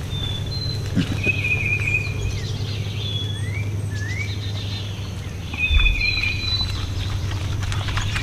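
Wild birds calling with short whistled notes and a couple of quick rising slurs, over a steady low rumble and the light patter of a sounder of feral hogs moving over the leaf-littered ground. A dull low thump comes just before six seconds in.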